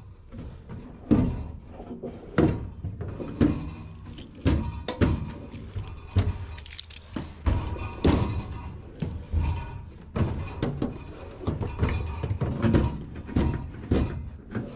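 Metal drawers of a stainless steel roll cabinet being pulled open and pushed shut, a series of thunks and knocks about once a second.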